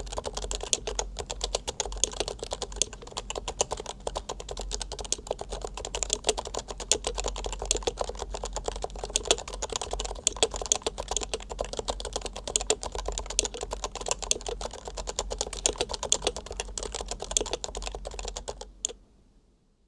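Fast, continuous typing on a Leopold FC660C keyboard with 45 g Topre electro-capacitive (rubber-dome) switches: a dense, unbroken stream of keystrokes that stops abruptly near the end.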